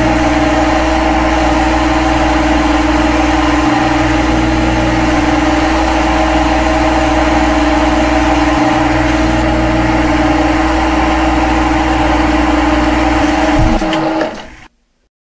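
Simulated CNC lathe spindle and cutting sound from a lathe simulator app: a steady machine hum and hiss. Near the end it winds down in pitch and stops as the program ends at M30 and the spindle halts.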